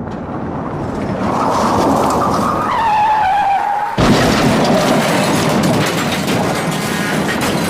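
Car crash sound effect: tyres squeal with a falling pitch, then a sudden loud crash about four seconds in, followed by a noisy aftermath of scattered knocks and rattles.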